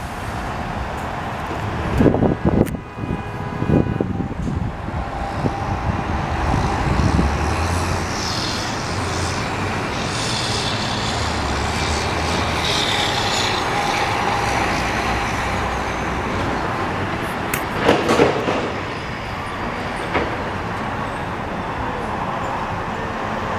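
Tow trucks driving past one after another, a steady heavy-vehicle engine and traffic rumble, with a few sharp thumps near the start and again about three quarters of the way through.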